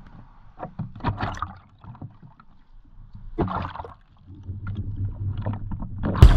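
Sea water splashing and sloshing around a small camera being dipped in and out of the surface, with scattered knocks of handling. A low rumble builds in the second half, and a sharp thump comes just before the end.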